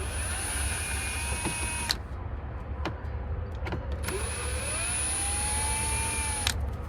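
Cordless drill backing out the screws that hold the headlight switch panel: the motor runs twice, once stopping about two seconds in and again from about four seconds in until near the end, its whine rising as it spins up. A low steady hum lies under it throughout.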